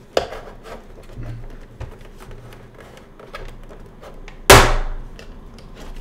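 A metal pry tool working the plastic back case off a Lenovo IdeaCentre all-in-one: scattered small clicks and scrapes, then one loud sharp snap about four and a half seconds in as a clip lets go.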